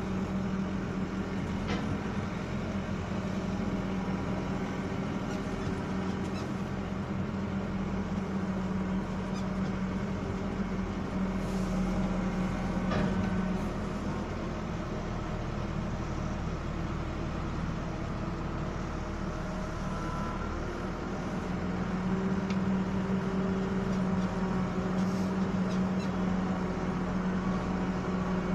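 Diesel engine of a Mecalac machine running steadily, heard from inside its cab as it moves slowly. The engine note eases off a little about halfway through and comes back up some seconds later.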